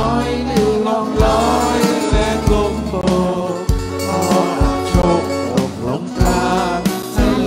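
A live band playing a song: a steady drum beat with bass and guitar under a melody line.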